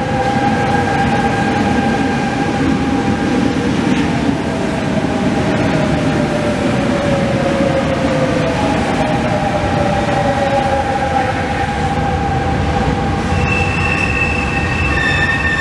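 Double-deck RER electric trains moving through an underground station: a steady rumble of wheels on rail, with the traction motors' whine sliding slowly down in pitch. Near the end a high, steady tone comes in.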